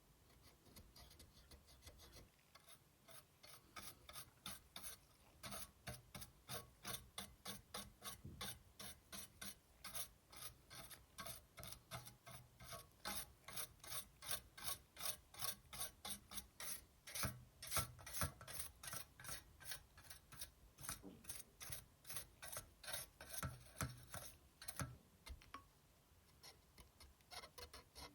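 Rhythmic scrubbing strokes on a PS4 Slim's heatsink, about two to three a second. They start about two seconds in and thin out near the end.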